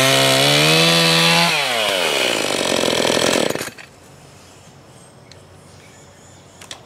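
Husqvarna 346XP two-stroke chainsaw with a muffler mod, screaming at full throttle, then let off so the revs fall away over about two seconds until the engine stops about three and a half seconds in.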